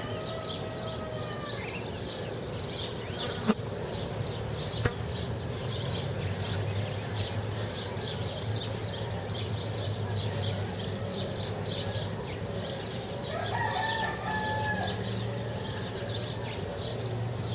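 A rooster crowing in the distance, once plainly about thirteen seconds in, over steady rapid high-pitched chirping and a low background hum. Two sharp clicks come about three and a half and five seconds in.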